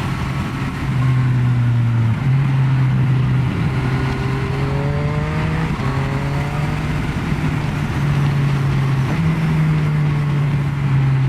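Yamaha Tracer motorcycle with a Scorpion exhaust, ridden through bends. The engine note rises and drops in steps several times as it is run up and down through the gears, over wind noise.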